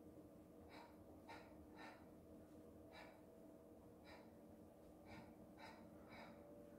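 Faint, short, sharp breaths, about eight at uneven intervals, over a faint steady hum.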